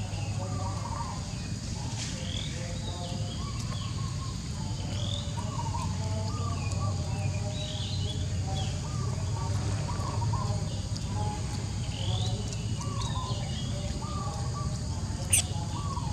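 Outdoor forest ambience: short bird chirps repeating every second or two over a steady high insect hum and a low rumble, with one sharp click about fifteen seconds in.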